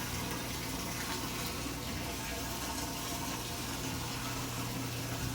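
Washing machine running, a steady rush of water over a constant low hum.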